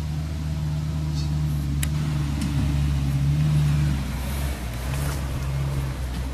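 Engine of a Mitsubishi L300 4WD van running at low revs as it crawls up a steep, rutted dirt track; a steady low drone whose note drops slightly about four seconds in.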